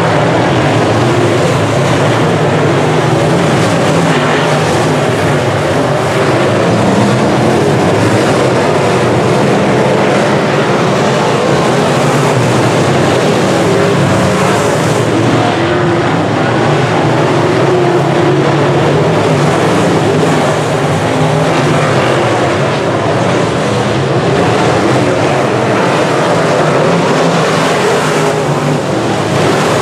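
Semi-late model dirt race cars' V8 engines running hard around the dirt oval, loud and steady throughout.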